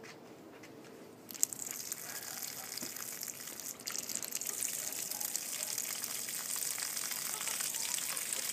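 Water gushing and splashing out of the open ends of plastic drip-irrigation pipes as a new line is flushed of dirt and cutting debris. It starts suddenly about a second in and grows stronger a few seconds later, then runs steadily.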